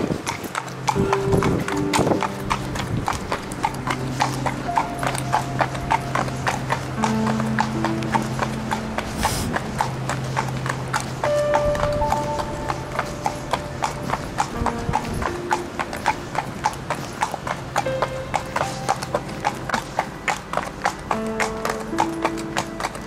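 Horse's hooves clip-clopping in a steady, even rhythm over background music with long held notes.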